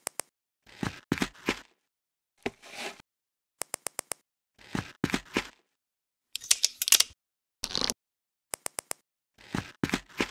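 Lego plastic pieces clicking and rattling in short separate bursts: quick clusters of three or four sharp clicks alternate with brief rattling rustles, about every second or so, with dead silence between.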